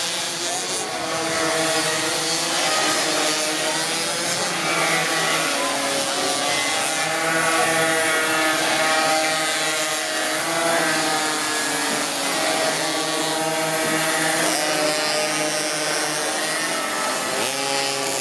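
Several small two-stroke minimoto (pocket bike) engines buzzing, revving up and down in overlapping pitches as the bikes race through the corners.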